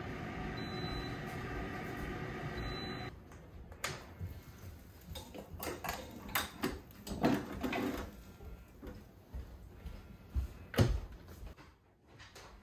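Pampered Chef Deluxe Air Fryer running with a steady fan hum for about three seconds. Then the air fryer door is opened and the wire rotating basket is handled and lifted out, with irregular metal clanks and scrapes and a sharp knock near the end as the basket is set down.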